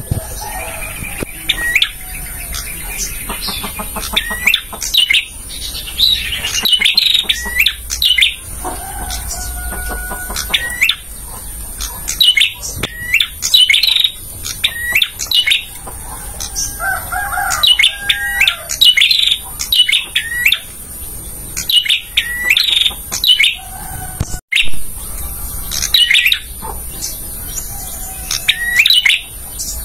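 Male prenjak singing: quick runs of sharp, rising chirps that come again every second or two, with a few lower, held whistled notes between, over a steady high hiss.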